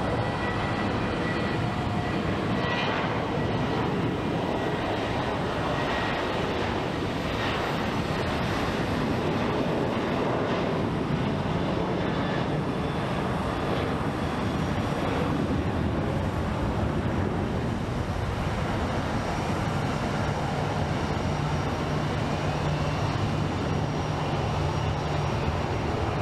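Jet airliner's engines at takeoff thrust, a loud, steady rush of noise with a faint high whine that slowly falls in pitch: a Southwest Boeing 737 on its takeoff roll and climb-out.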